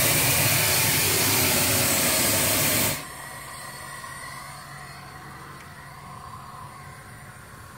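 Steam blower of a fire-tube boiler hissing loudly as its blower ring drives a jet up the stack to pull air through the fire. The hiss cuts off abruptly about three seconds in, leaving a faint steady hiss.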